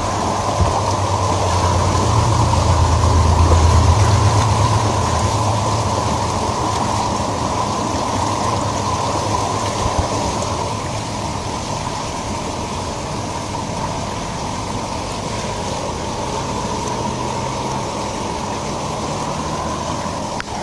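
A vehicle engine running with a low rumble that swells about two to five seconds in, over a steady rushing noise.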